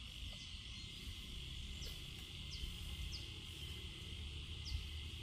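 Forest insects keeping up a steady, high-pitched drone, with a few short high chirps over it and a low rumble underneath.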